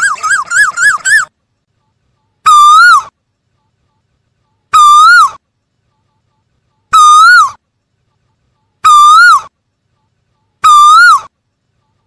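Asian koel calling: a quick run of short rising whistled notes at the start, then a single clear whistled call repeated five times, about every two seconds, each rising and then dipping in pitch.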